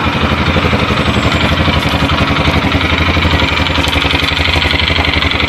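A 220cc ATV's GY6-type single-cylinder four-stroke engine idling steadily.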